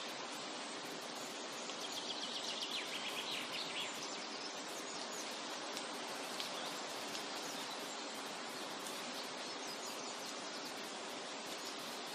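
Forest ambience: a steady rushing hiss, like wind in trees or distant running water. About two seconds in a bird gives a rapid trill of short notes that drops in pitch over a second or so, and a few fainter chirps follow.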